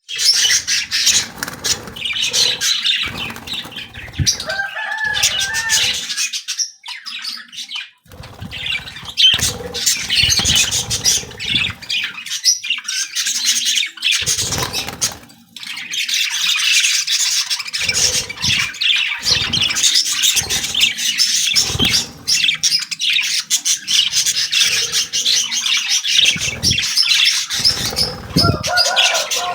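A group of lovebirds chattering, with many rapid, high-pitched chirps and calls overlapping, broken by a few short lulls.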